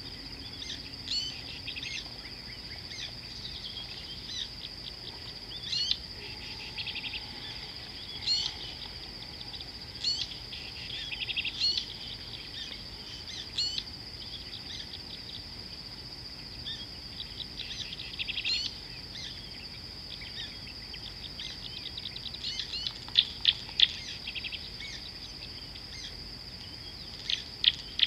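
Wild birds calling again and again, with short sharp chirps and quick trills in clusters, over a steady high-pitched insect drone. The loudest run of calls comes about three-quarters of the way through.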